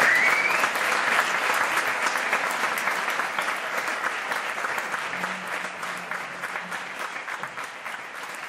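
Concert audience applauding, gradually dying away, with a short rising whistle from the crowd at the very start.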